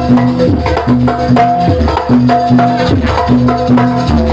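Jaranan music from a live ensemble: hand drums beating a fast, driving rhythm under short, repeated pitched notes that cycle in a steady pattern.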